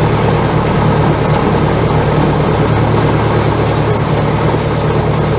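Cessna 172's piston engine and propeller idling steadily, heard from inside the cockpit as a loud, even low drone.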